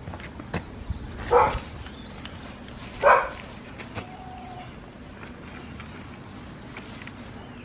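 A dog barking twice, the barks a little under two seconds apart.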